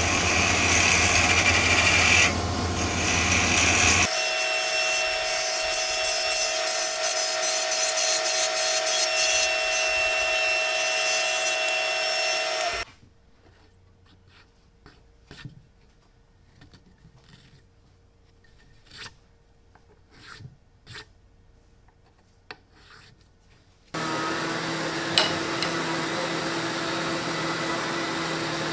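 A wood lathe spins a thin wooden draw-bore pin while a turning tool cuts it, giving a steady scraping hiss over the motor's hum through the first half. It then drops to near-quiet, with a few light clicks and taps as the pin is tried in a mortise-and-tenon joint. Near the end a plunge router and a sander cut in, running steadily together.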